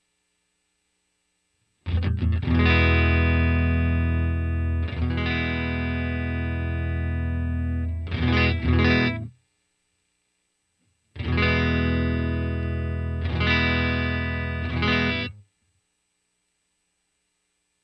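Electric guitar played through a Vox AC30 amp simulator (STL Tones AmpHub), in two phrases separated by about two seconds of silence. Each phrase is a couple of chords left to ring, then a few quick strums before it stops.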